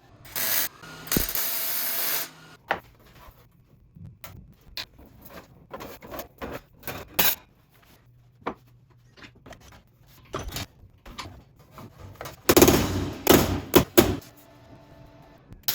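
Workshop clatter: scattered knocks and clicks of tools and parts being handled, with a few short bursts of noise, the loudest about 12 to 14 seconds in.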